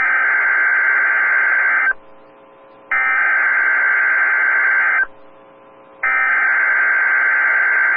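Emergency Alert System SAME header: three bursts of buzzing digital data tone, each about two seconds long and a second apart, the coded header that opens a new weather alert.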